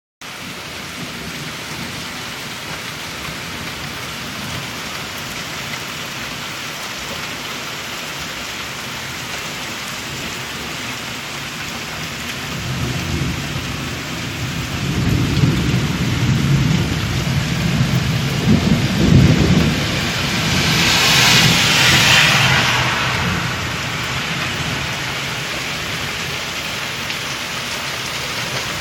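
Steady rain during a thunderstorm, with a long rolling rumble of thunder that builds about halfway through and peaks near two-thirds of the way, followed by a brief louder rush of noise before the rain settles back to a steady level.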